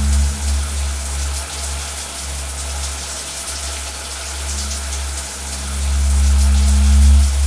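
Shower running behind the curtain, a steady hiss of spraying water, over a deep sustained drone that swells toward the end.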